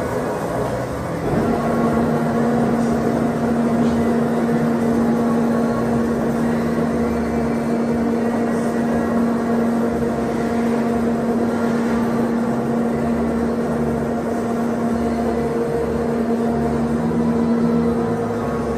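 Haeusler three-roll plate bending machine running, a steady machine hum; a strong steady tone comes in about a second and a half in and holds, as the drive takes up.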